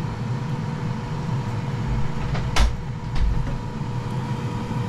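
Ninja dual-drawer air fryer running with a steady fan hum; about two and a half seconds in, a sharp clunk as a drawer is pulled open, followed by a lighter knock.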